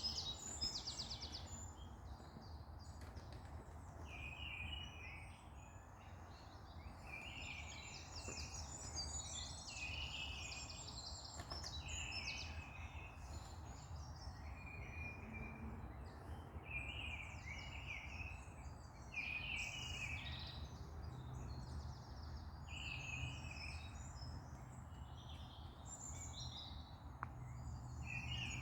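Several songbirds singing on and off, short chirping and trilling phrases overlapping one another, over a steady low rumble.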